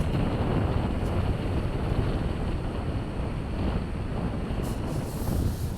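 Strong wind buffeting a phone's microphone in a steady low rumble, with ocean surf washing underneath.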